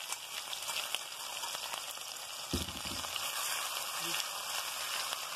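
Crushed ginger, garlic and green chillies sizzling in hot oil in a wok, a steady frying hiss. A dull thump comes about two and a half seconds in.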